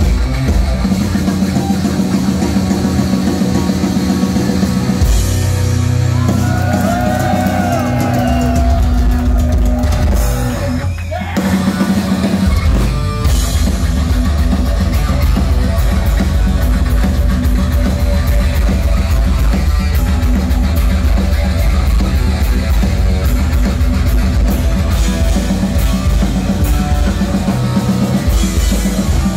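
Heavy metal band playing live: loud distorted electric guitar over bass and drum kit, with a run of bent, wavering guitar notes several seconds in and a brief break in the low end a little later.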